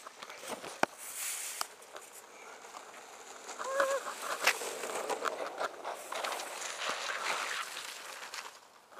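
Longboard wheels rolling over rough asphalt as a rider passes, a rushing noise that swells and then fades near the end. Just before four seconds in there is a short wavering cry.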